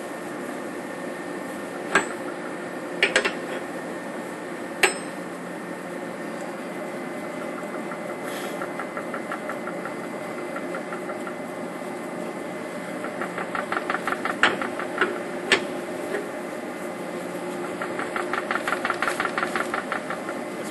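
A wrench working a nut on a rusty bolt clamped in a bench vise, with sharp metal clanks and two runs of rapid even ticking at about six a second. Under it runs a steady machine hum.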